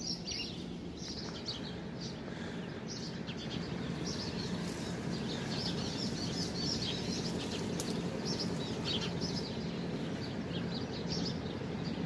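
Many small birds chirping in a flock, with quick, high, overlapping chirps throughout, over a steady low background hum.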